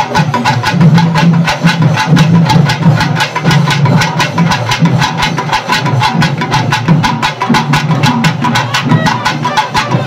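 Fast, even drumming, about six sharp strikes a second, over a steady low hum.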